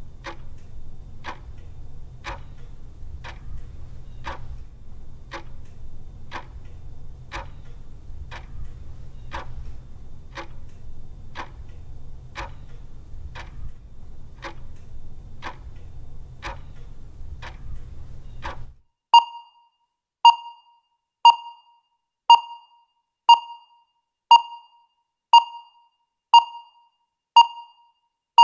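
Countdown timer sound effect: clock-like ticking about twice a second over a low steady rumble, which stops about two-thirds of the way through. Then a short ringing beep once a second, ten times, marking the final ten seconds of the countdown.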